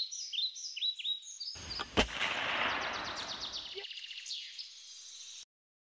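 Songbirds chirping in quick, repeated high notes, then a single loud shot-like bang about two seconds in, with a rushing noise that starts just before it and dies away over the next two seconds. The birdsong fades, and the sound cuts off shortly before the end.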